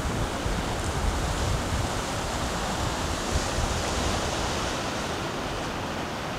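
Steady rush of wind and choppy sea water, with gusts buffeting the microphone.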